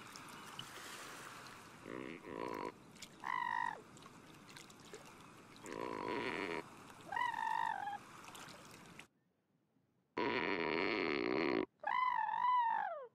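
Cartoon sound effects and non-verbal character calls. Short noisy bursts alternate with wobbly, pitched vocal calls; after a brief silence comes a louder burst, then a wavering call that slides down in pitch near the end.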